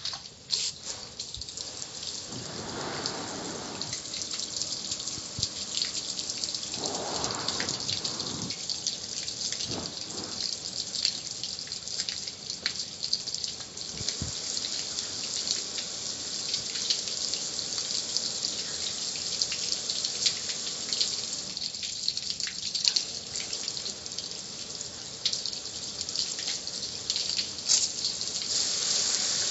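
Hose spray nozzle hissing steadily, its water spattering and pattering on the metal lid and control panel of a gas grill, with a few louder swells in the spray.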